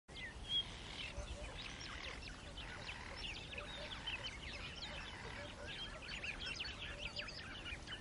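Many small birds chirping and twittering in a dense, continuous chorus over a faint background hiss, with one louder chirp about half a second in.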